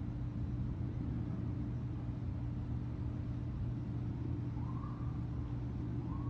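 Steady low rumble and hum of city traffic, with a cat meowing faintly twice, about four and a half seconds in and again near the end.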